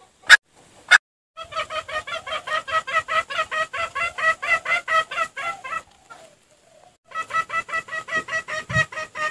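Junglefowl lure call: two short, sharp calls near the start, then a rapid run of pitched clucks, about six a second, for some four seconds. After a brief pause a second run of clucks follows.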